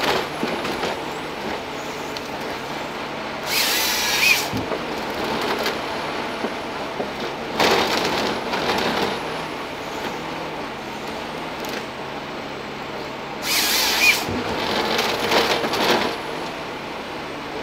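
Ponsse Scorpion harvester processing a stem: the machine's engine and hydraulics run steadily while the harvester head feeds and delimbs the trunk, and its chain saw buckles through the log in four short, loud cuts.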